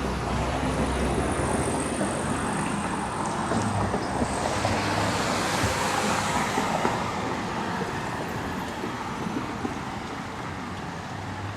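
City street traffic: a passing vehicle's tyre and engine noise swells about halfway through and then fades away under the steady street noise.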